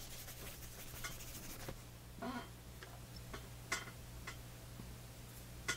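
Faint clicks and light taps from hands handling a small RC speed controller and its wire leads, a few scattered clicks with the sharpest near the end, over a low steady hum.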